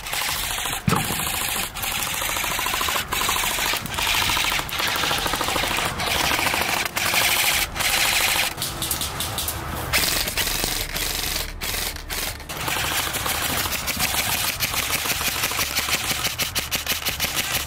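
Airsoft rifles firing long full-auto bursts: a fast, continuous mechanical rattle of rapid shots, with a few brief pauses between bursts.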